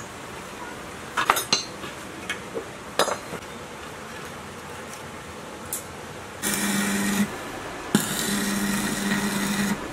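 A few metal clinks and knocks from a socket wrench working a rusty bracket on a diesel engine's sheet-metal water tank. Then an arc welder's arc buzzing and crackling, first briefly about two-thirds of the way in, then struck again with a sharp crack and held for about two seconds, ending just before the end.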